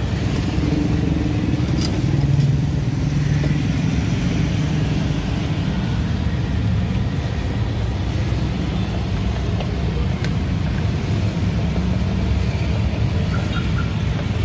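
A steady low rumble throughout, with a few faint clicks as a drink is stirred and handled in a plastic cup.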